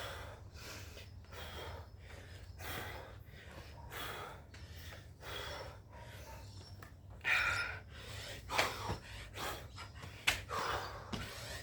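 A person panting hard from exertion: a heavy breath every second or so, with a few louder gasps in the second half.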